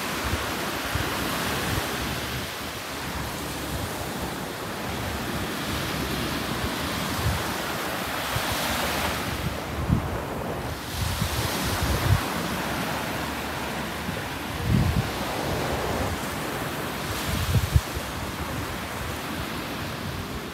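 Small surf breaking and washing up a sandy beach, with wind buffeting the microphone in low rumbling gusts.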